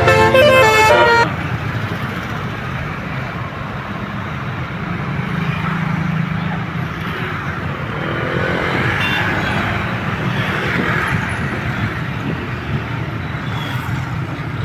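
A bus's Basuri multi-tone telolet air horn plays a stepping, multi-note melody and cuts off about a second in. Street traffic follows: a low engine hum from a passing bus and the noise of other vehicles going by.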